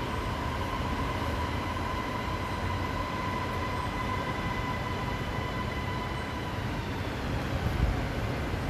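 Electric metro train running on the elevated line: a steady rumble with a whine that fades out about six and a half seconds in. A low thump near the end.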